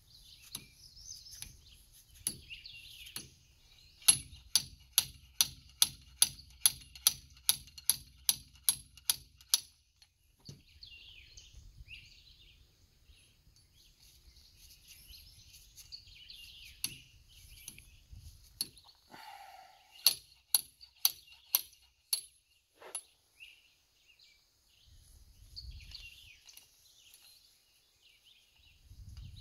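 Sharp metallic clicks from hand tools at work on a dump trailer's telescopic hydraulic ram. A regular run of about two or three clicks a second goes for some five seconds, and a few scattered clicks come later. Birds chirp in the background throughout.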